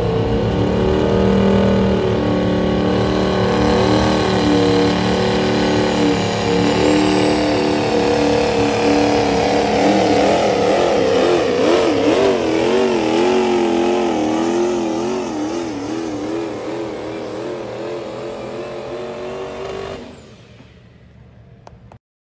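Diesel pickup truck engine run hard under load while pulling a truck-pull sled. Its pitch wobbles quickly up and down in the middle of the run, then the engine fades and drops away sharply near the end.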